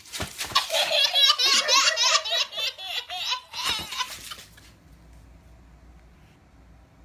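A baby belly-laughing in rapid, high-pitched bursts, cutting off about four and a half seconds in.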